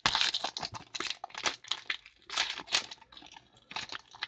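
Foil wrapper of a trading-card pack being torn open and crinkled by hand: irregular crackling rustles, loudest just at the start.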